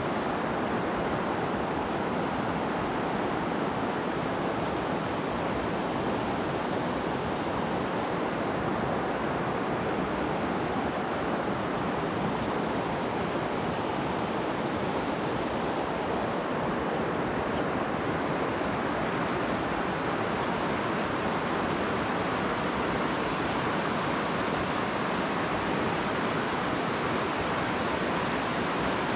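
A shallow, rocky mountain stream running over riffles close by: a steady, even rush of water that holds unchanged throughout.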